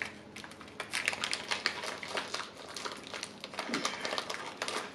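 Plastic snack wrapper crinkling and crackling as it is bitten and then torn open by hand, a quick run of small irregular crackles.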